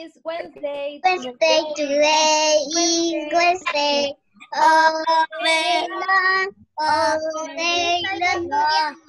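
Young children singing a song over a video call, with a woman's voice singing along; the notes are held, in phrases broken by short pauses.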